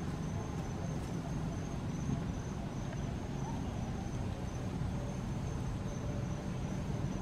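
An insect's steady high-pitched trill with a faint pulsing, over a steady low rumble of outdoor background noise.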